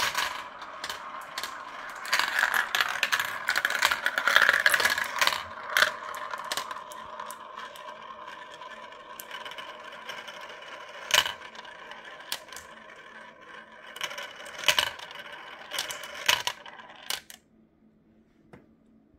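Glass marbles rolling and clattering through a clear plastic marble run: a dense stream of clicks at first, thinning to scattered clicks and a few louder knocks, then stopping a couple of seconds before the end.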